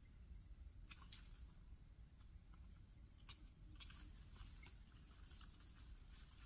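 Near silence outdoors: a faint steady low rumble and a thin steady high-pitched tone, with a few faint sharp clicks scattered through, the first about a second in.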